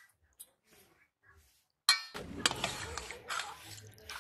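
Steel serving spoon against stainless steel bowls while fish curry is dished onto rice: faint scrapes, then a sharp metallic clink about two seconds in, followed by clattering and scraping.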